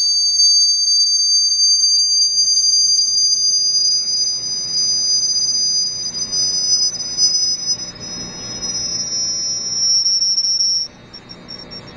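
Piercing high-pitched electronic tones from a cymatics tone generator driving the sand plate. Two close tones slowly glide toward each other, one rising and one falling, over a faint low rumble. The sound drops sharply about eleven seconds in.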